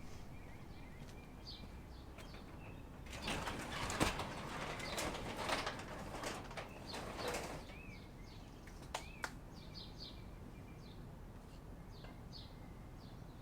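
Small birds chirping in short, high calls, with a louder rustling burst a few seconds in that lasts about four seconds.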